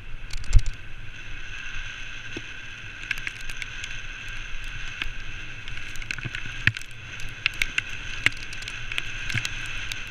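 Wheeled dry-land dog rig rolling fast along a muddy, puddled trail behind a pulling husky team. A steady high whine runs under scattered clicks and rattles, with a thump about half a second in.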